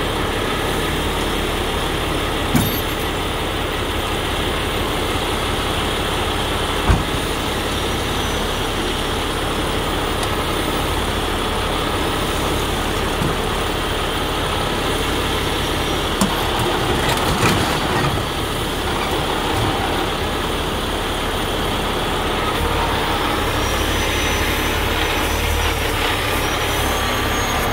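Heavy rotator wrecker's diesel engine running steadily while its winch lines pull a rolled-over loaded dump truck upright, with a few sharp clanks about two and a half, seven and seventeen seconds in.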